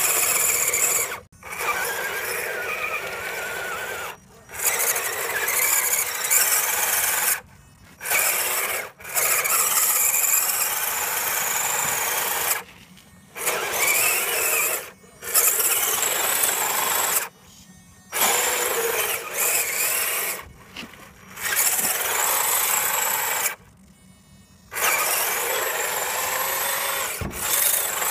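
Electric motor and gearbox of an RC scale crawler truck whining as it drives through mud, in bursts of one to four seconds broken by short silences where the throttle is let off; the pitch rises and falls with the throttle.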